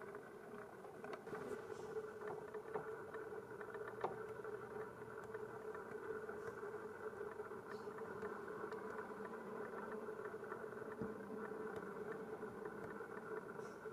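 Steady engine hum with an unchanging pitch, and a single faint click about four seconds in.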